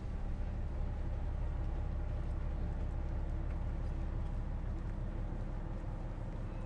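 Steady low rumble of a car ferry's engines, with a faint even hum above it.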